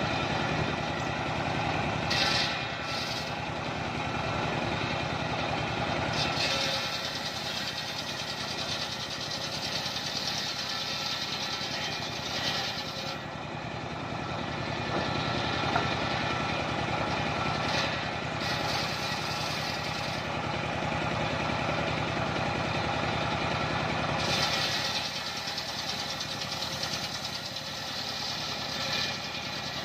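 Engine of a homemade circular sawmill running steadily while the large circular blade rips mahogany into boards, the cutting hiss swelling during several passes through the wood.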